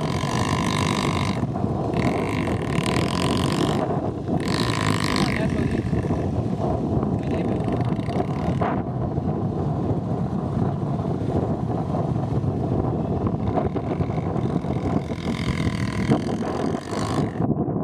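Honda XR250 Tornado dirt bike's single-cylinder four-stroke engine running on sand, revving up in bursts three times during the first five seconds and again near the end.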